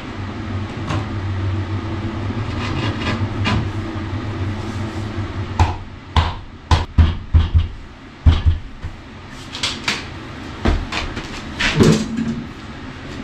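Sharp knocks and taps as a wall tile is pressed and tapped into place in its adhesive. The knocks come in a quick run from about five and a half seconds in and again a few times near the end. A steady low hum sits under the first five seconds.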